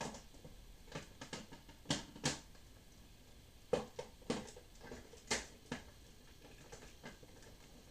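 Parts of a Legacy Titanus zord toy clicking and knocking as it is handled: about ten sharp clicks and taps, irregularly spaced, a half second to a second or so apart.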